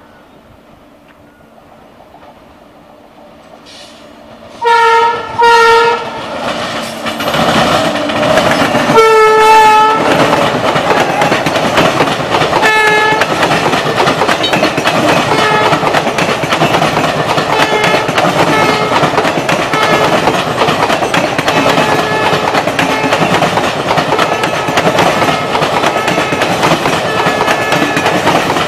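Indian Railways passenger train approaching and passing close by. Its locomotive horn sounds two short blasts about five seconds in, a longer blast a few seconds later and a brief one after that. Then the coaches go past with a loud, steady rumble and rhythmic wheel clatter over the rail joints.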